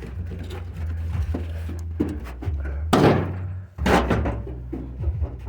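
Two heavy thunks, like something being slammed shut, about three and four seconds in, over a steady low hum.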